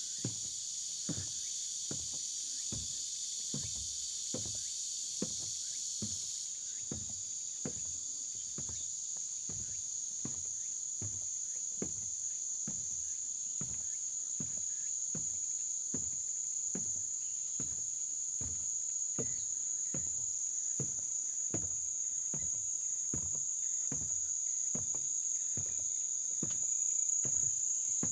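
Footsteps on a forest trail at a steady walking pace, under a continuous high-pitched chorus of insects. A broader buzzing layer of the chorus drops out about six seconds in, leaving a single thinner high drone.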